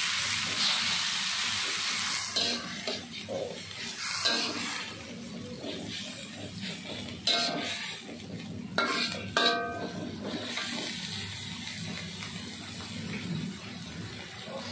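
Bitter gourd shoots sizzling in hot oil in a metal wok as they are stir-fried with a metal spatula. The sizzle is strongest for the first couple of seconds, then settles, with the spatula scraping and clanking against the wok now and then.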